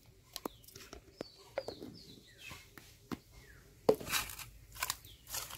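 Small birds chirping in short falling calls, over sharp taps and clicks of a spoon and hands at a steel bowl as salt is spooned onto fish. The loudest tap comes about four seconds in.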